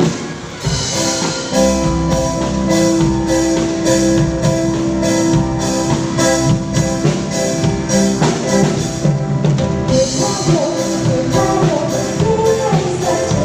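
Music with a steady drum beat and singing.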